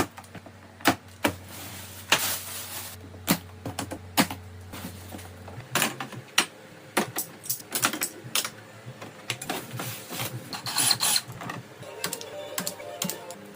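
Irregular clicks, knocks and clatter of hands-on work with tools or parts, over a low steady hum that stops about halfway through.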